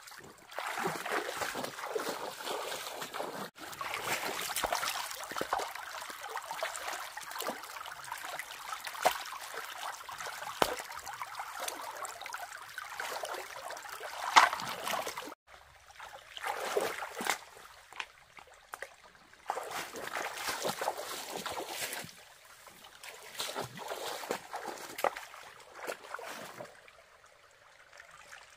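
Hands splashing and sloshing in a shallow stream's running water, feeling around and under the rocks for fish. Steady, busy splashing for about the first fifteen seconds, then it breaks off suddenly and comes in shorter bursts with quieter gaps.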